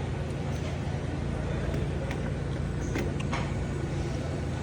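Steady low background hum with a few faint clicks and distant voices.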